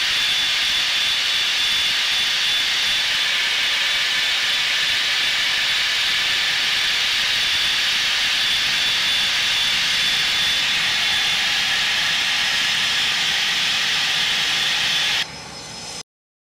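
Jet engines of a Blue Angels two-seat F/A-18 Hornet running at taxi power, heard inside the cockpit as a steady loud hiss with a thin high whine. The sound drops sharply near the end and then cuts off.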